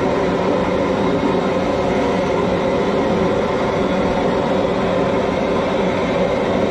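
Propane jet burner under a large crawfish boil pot running loud and steady at full heat while the seasoned water comes up toward a rolling boil.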